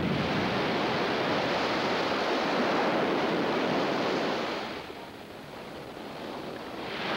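Sea surf rushing and churning: a steady wash of water that falls away about five seconds in and surges back near the end.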